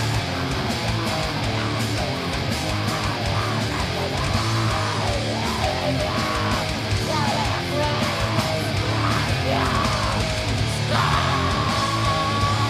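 Heavy metal band playing live at full volume, led by loud electric guitars, with pitch-bending lines through the riff and a long held high note starting about eleven seconds in.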